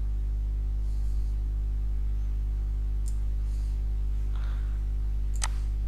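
Steady low electrical hum with a few faint computer mouse clicks, the sharpest one near the end.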